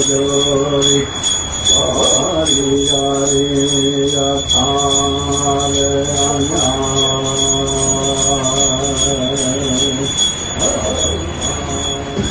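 A man's voice chanting in long held low notes, each lasting a few seconds, over a rhythmic high-pitched jingling beat about three times a second.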